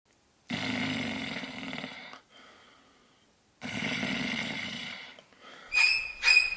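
A person snoring: two long snores, each about a second and a half, with a faint breath between them. Music with short repeating notes starts near the end.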